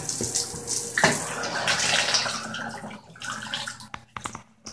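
Moen shower head spraying water, then shut off at the shower valve: a clunk about a second in, the spray dies away over the next two seconds, and a few drips follow.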